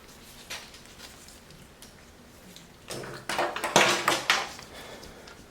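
Scattered clicks and rustles of a wiring harness and its plastic connectors being handled, with a louder burst of rustling and knocking about three to four and a half seconds in.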